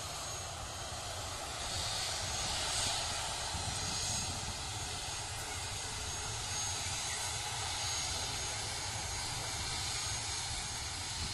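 Boeing 737 jet engines running steadily: a continuous rush with a faint high whine, swelling slightly about two seconds in.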